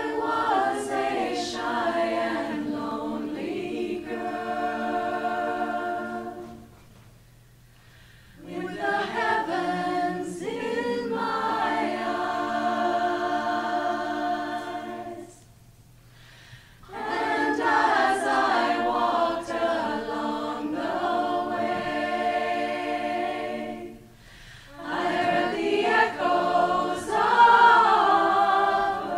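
Mixed choir of women's and men's voices singing a cappella in held chords, in four long phrases with short breaths between them.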